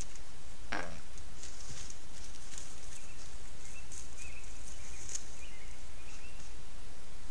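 Steady low hum and hiss from the trail camera's recording, with a single quick downward-sweeping sound about a second in, a few faint short high chirps in the middle, and scattered light high ticks.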